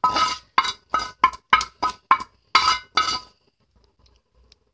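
Metal clinks and knocks, about ten in quick succession and each ringing briefly at the same pitch, as a small metal pan of tempering is tapped and scraped empty over the pot; they stop a little past three seconds in.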